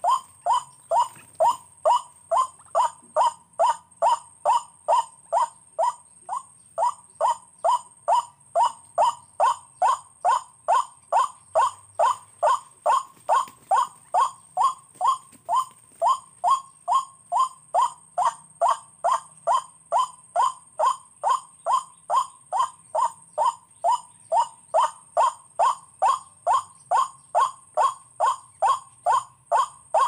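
White-breasted waterhen calling monotonously: one short falling note repeated evenly about twice a second.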